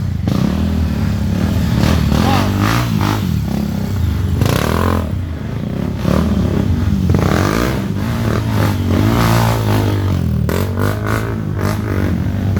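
Off-road motorcycle engines running and revving, rising and falling in pitch, with scattered sharp knocks.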